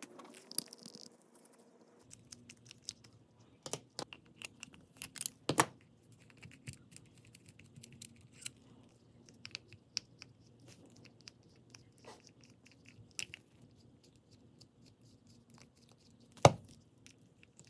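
Plastic and small metal parts of an Ugly Stik GX2 spinning reel being handled and taken apart: a scatter of small clicks, taps and rattles. A few louder knocks come about four and five and a half seconds in, and the sharpest, loudest knock comes near the end as a screwdriver is put to a screw on the reel body.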